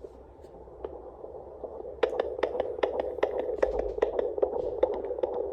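Fetal heartbeat heard through a home fetal Doppler's speaker. A low hiss gives way about two seconds in to a rapid, rhythmic whooshing pulse as the probe locks onto the baby's heart, which beats at about 155 beats a minute, a normal fetal rate.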